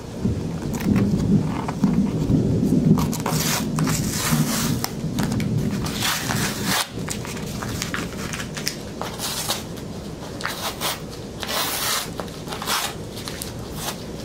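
Cardboard shipping box being handled and worked at, its packing tape and cardboard crackling and scraping in irregular bursts, with low rumbling handling noise in the first few seconds.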